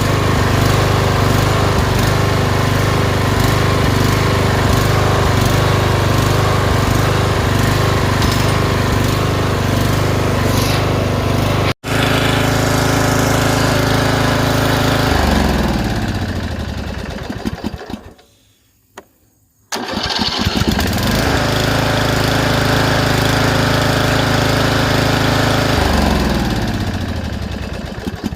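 Lawn mower engine running steadily, with a brief dropout about twelve seconds in. It then winds down to a stop, is started again a couple of seconds later and runs, and near the end winds down and stops once more.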